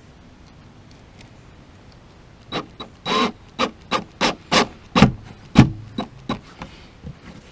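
A run of short scraping rubs, two or three a second, starting about two and a half seconds in, with two heavier bumps near the middle: fingers working against the plastic mounting plate and kayak hull while fitting hardware under the plate.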